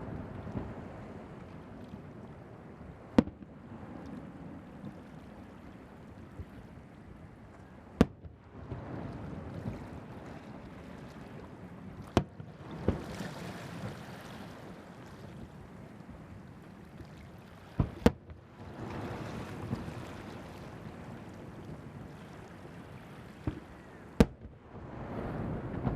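Aerial firework shells bursting one at a time: about seven sharp bangs several seconds apart, two of them in quick succession about 18 seconds in. Between the bangs there is a steady rushing background, and a hissing spell after the bang at about 12 seconds.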